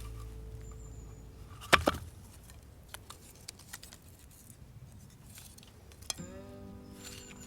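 A few sharp clicks and knocks, the loudest pair about two seconds in, then scattered faint ticks, between music that fades out early and new music starting near the end.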